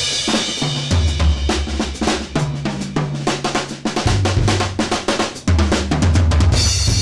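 Drum kit played with sticks in a busy groove: quick snare and tom strokes, bass drum kicks and cymbal and hi-hat hits. Low held bass notes, changing pitch every second or so, run underneath.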